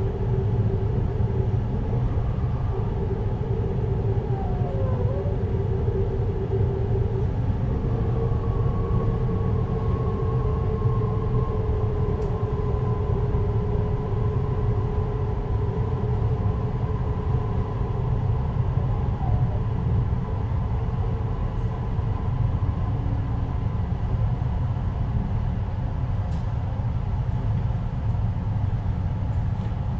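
Inside a JR Hokkaido 733 series electric train's motor car: a steady running rumble with a faint electrical whine that steps up in pitch about seven seconds in and then slowly falls, as the train slows on its approach to the end of the line.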